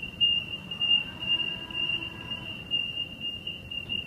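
Millennium train's door-closing warning: a steady high-pitched tone sounding while the doors slide shut.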